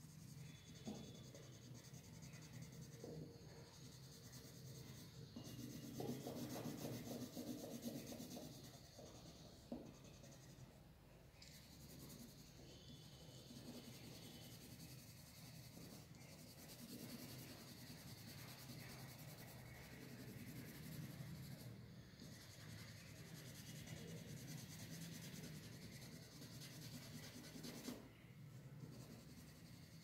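Coloured pencil shading on drawing paper: a faint, continuous scratching as the lead rubs back and forth, a little louder for a couple of seconds about six seconds in.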